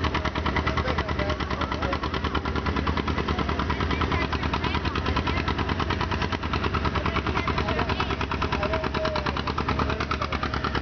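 Antique John Deere two-cylinder tractor engine running with a steady, rapid popping beat while hooked to a pulling sled.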